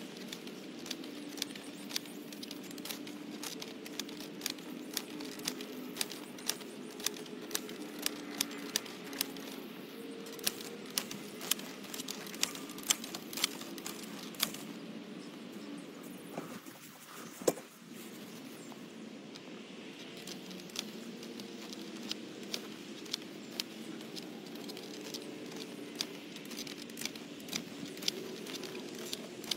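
Hand-pushed wheel hoe clicking and clattering as it is shoved through garden soil in short strokes, about two sharp clicks a second, over a steady low hum.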